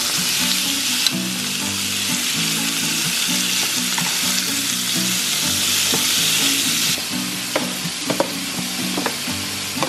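Thin New York strip steaks sizzling in a hot grill pan while they are turned with metal tongs. The sizzle is steady, then eases about seven seconds in, and a few light clicks follow.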